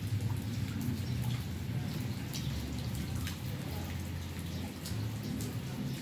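Light, scattered ticks of an empty brushed-chrome Zippo lighter case being handled and turned in the fingers, over a steady low hum.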